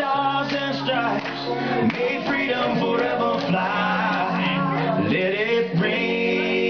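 Recorded country song with a male lead singer and guitar, playing steadily over a hall sound system.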